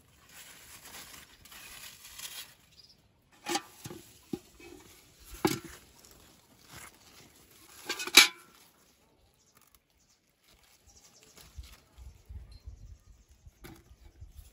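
Cucumber vine leaves rustling, then several sharp snaps and knocks as cucumbers are picked by hand, the loudest about eight seconds in.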